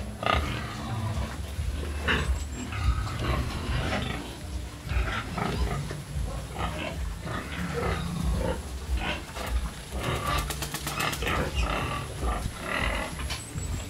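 Pigs making many short, irregular calls, over a steady low rumble.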